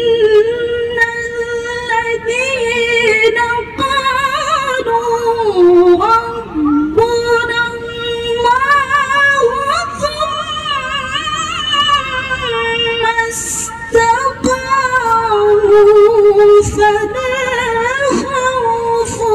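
A woman's solo Quran recitation in melodic tilawah style: one voice held in long, ornamented phrases, mostly on one pitch with a lower passage about six seconds in.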